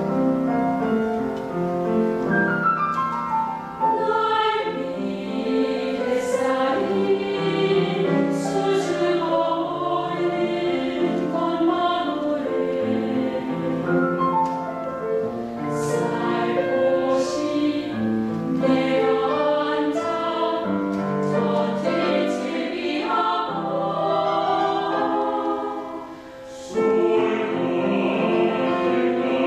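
Mixed choir singing a Korean choral song in full harmony. About 26 seconds in it breaks off briefly between phrases, then comes back in louder.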